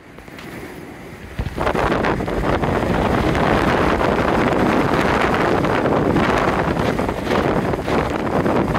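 Storm-force wind buffeting the microphone: a loud, rough, gusting rumble that starts suddenly about a second and a half in and keeps surging unevenly.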